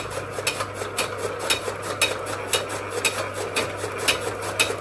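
Motor-driven flywheel chaff cutter chopping green fodder (berseem), its blades striking with a sharp chop about twice a second over a steady low machine hum.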